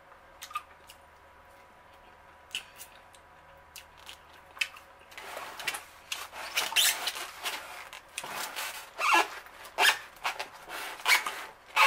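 Close-miked chewing of chow mein and an egg roll: a few faint clicks at first, then from about five seconds in, chewing in quick irregular bursts.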